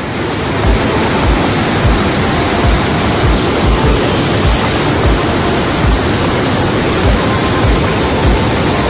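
Steady rushing roar of Montmorency Falls, heavy water falling nearby, with irregular low thumps underneath.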